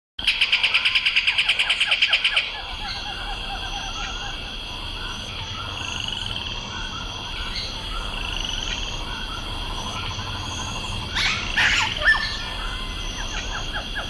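Forest animal chorus of frogs and birds. It opens with a loud, rapid pulsing call, about nine pulses a second, for the first two seconds. It then settles into steady layered calling and chirping, with a louder, sweeping call about eleven seconds in.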